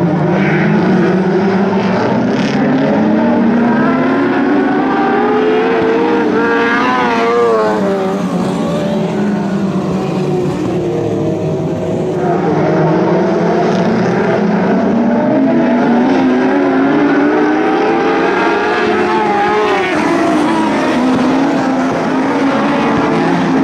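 Engines of a pack of Lightning Sprints, small winged dirt-track sprint cars, running together as they lap the oval. Their overlapping engine notes rise and fall in pitch as the cars speed up and slow down.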